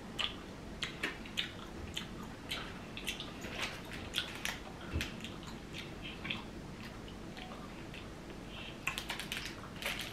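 Close-up mouth sounds of a person chewing a soft, taffy-like chewy candy: irregular wet clicks and smacks. Near the end a short cluster of crackles comes as a plastic snack packet is handled.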